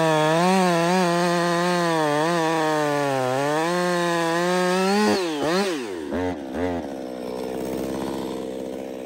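Woods-ported Jonsered 2156 two-stroke chainsaw running at high revs through a cut, its pitch dipping and recovering as the chain loads and frees. About five seconds in the throttle is released and the revs fall away, with a couple of short blips, before it settles to a low idle.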